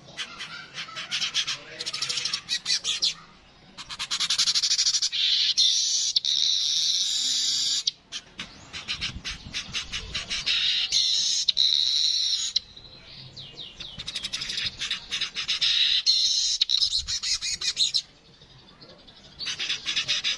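Yellow-headed manyar (weaver) singing: bouts of rapid, densely repeated high notes lasting a few seconds each, broken by short pauses.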